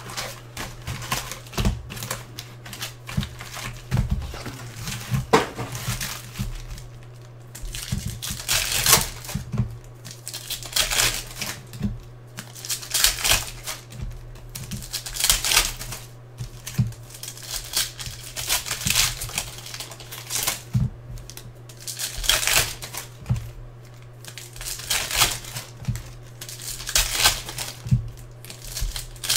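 Foil wrappers of Donruss Optic baseball card packs crinkling and tearing as packs are opened and handled, in irregular clusters of crackles, over a steady low hum.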